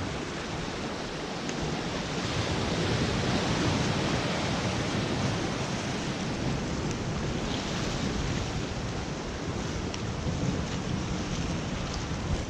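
Steady rushing of sea surf washing over shore rocks, mixed with wind noise on the microphone, swelling a little and easing again.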